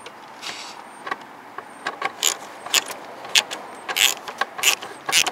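Hand tools clicking and clinking on metal while working on a truck's dimmer switch: sharp, irregular clicks, a few a second, coming thicker from about two seconds in.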